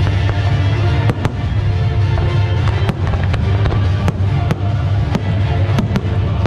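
Aerial firework shells bursting in a series of sharp bangs, about nine, some in quick pairs. They sound over continuous loud music with a strong bass.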